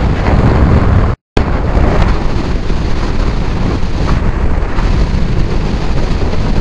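Wind blasting the microphone of a rider on a Kawasaki Ninja 650 at highway speed, with the bike's engine and road noise underneath as a steady low rush. The sound cuts out for an instant about a second in, then carries on unchanged.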